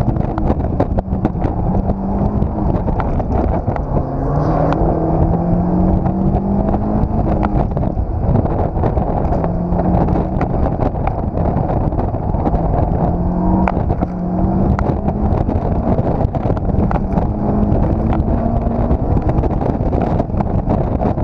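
Open-top Honda sports car's engine driven hard through an autocross course from inside the cockpit. It revs up and falls back several times as the driver accelerates, shifts and brakes between cones, over a steady low rumble of wind and road noise with frequent sharp clicks and knocks.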